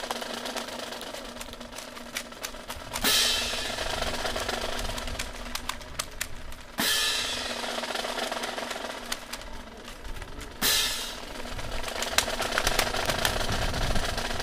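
Rifle drill by an honor guard: many sharp clicks and claps of rifles being handled, with three loud crashes about every three and a half seconds, each trailing off over about a second.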